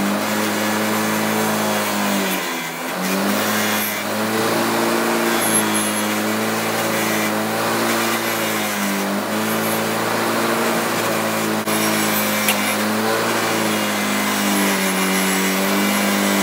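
Angle grinder with a 120-grit flap disc grinding a steel wrench. The motor runs steadily, and its pitch dips and recovers a few times as it is pressed into the work.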